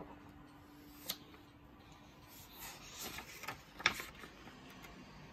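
Pages of a large hardcover book being turned by hand: quiet paper rustling and rubbing, with a short tap about a second in and a louder one near four seconds.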